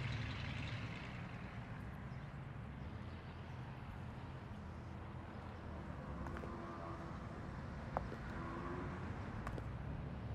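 Quiet outdoor street ambience: a low, steady rumble of distant traffic, with a single faint click about eight seconds in.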